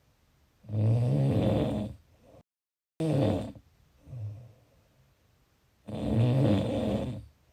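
A person snoring: long snores about a second in and again near the end, with shorter, fainter ones between. The sound drops to dead silence for about half a second in the middle.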